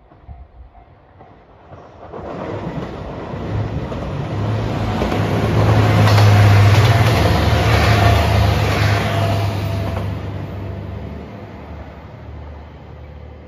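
JR Shikoku 2700 series three-car diesel railcar train passing at speed: engine drone and wheel-on-rail noise build from about two seconds in, are loudest around the middle, and fade away toward the end.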